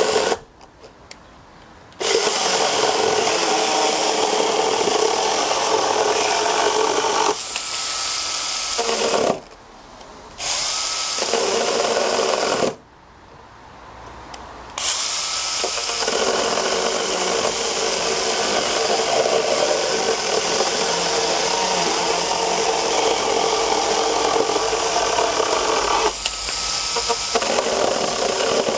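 Makita 12-volt cordless pruning chainsaw cutting into a timber board, its motor and chain running steadily under load. The saw cuts out briefly three times: near the start, about ten seconds in, and around thirteen to fifteen seconds in.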